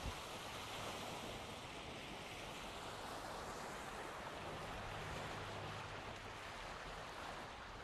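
Lake waves washing on the shore, a steady, even rush with no breaks.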